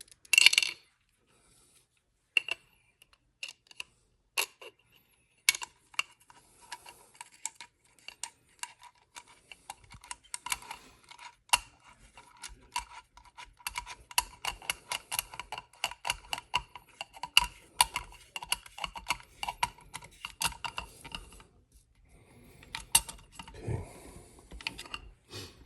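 Small metal parts and a hand tool clicking and tapping against an AR-15 lower receiver: a few separate clicks at first, then a long run of quick, irregular clicks with a light metallic ring, easing off near the end.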